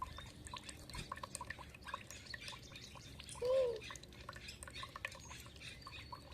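Water dripping and trickling, a steady patter of small drips. About three and a half seconds in, one short animal call that rises and falls in pitch stands out as the loudest sound.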